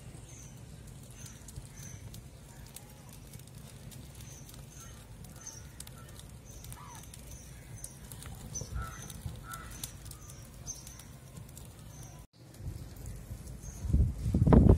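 Open fire of wooden planks and cardboard burning with a low rumble and scattered crackles, while birds chirp repeatedly in the background. A louder low rush comes near the end.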